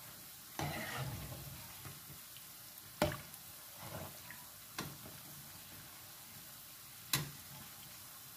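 Gemat dough balls sizzling as they deep-fry in hot oil, stirred with a metal slotted spoon that clinks sharply against the pan three times.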